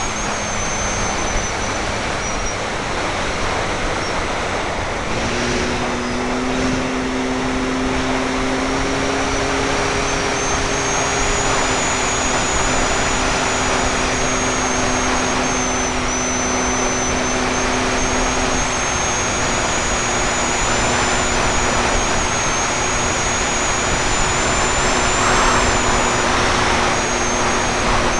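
Parkzone F4F Wildcat RC plane's electric motor and propeller whining steadily, heard from a camera taped to the airframe, with wind rushing over the microphone. The motor's pitch steps up about five seconds in and then holds.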